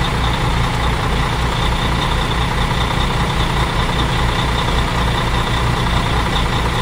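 Truck engine sound running steadily with an even low throb.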